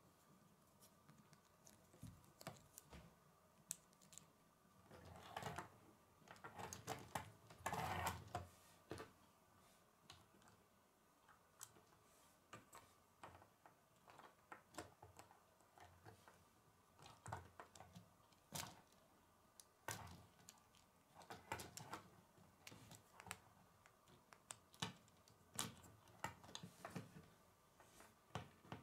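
Faint clicking and snapping of plastic K'nex pieces handled and pushed together by hand: rods, connectors and a wheel being fitted onto a chassis. The clicks are scattered, with busier rattling about five and eight seconds in.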